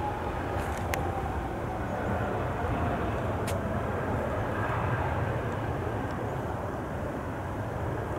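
Embraer E195 jet airliner's turbofan engines running as it rolls along the runway: a steady jet rumble with an engine whine slowly falling in pitch. There are a couple of sharp clicks in the first few seconds.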